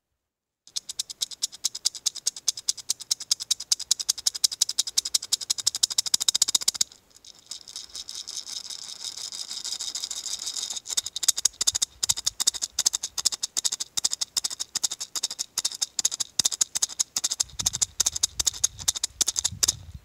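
Dried hard-shell gourd maraca shaken rapidly, its dried seeds rattling against the shell in quick, crisp strokes. For a few seconds in the middle the strokes blur into a softer continuous hiss, then the fast shaking picks up again and stops just before the end.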